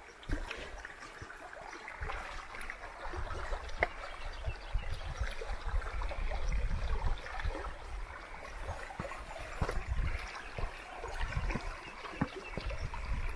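A mountain creek running and trickling, with scattered footsteps and trekking-pole taps. From about two seconds in there is a strong, uneven low rumble.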